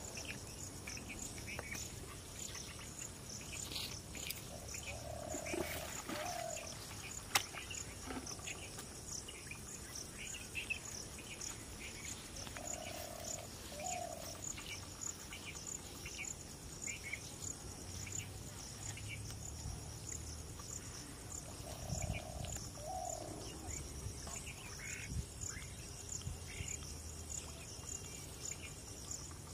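Pondside ambience: insects chirping steadily in an even rhythm, with scattered bird chirps and a low two-note call, a flat note then a short rising one, that repeats about every eight seconds. A single sharp click about seven seconds in.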